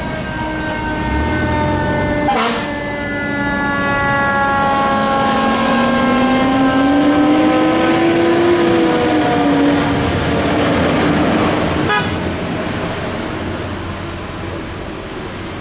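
Fire truck siren sounding as the apparatus passes, its pitch falling slowly as it winds down while a second, lower siren tone rises and falls, over the engines of the passing fire apparatus. A sharp click comes about two and a half seconds in.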